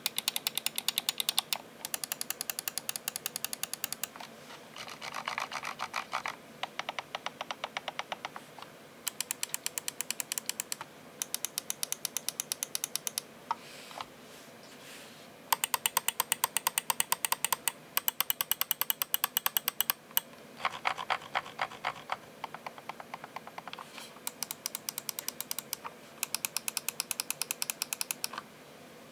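Logitech G Pro X Superlight gaming mouse buttons being clicked in rapid runs of sharp clicks, each run a second or two long with short pauses between. Some runs sound brighter and others duller.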